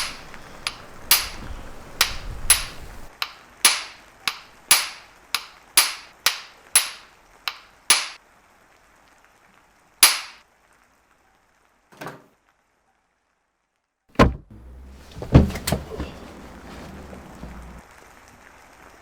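A run of sharp knocks, about two a second for roughly eight seconds, then a few single knocks a couple of seconds apart with near silence between them.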